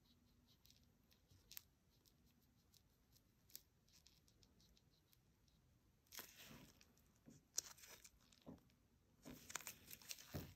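Near silence with a couple of faint ticks, then from about six seconds in soft, short rustles and clicks of gloved hands handling a gel brush, gel jars and a plastic nail tip.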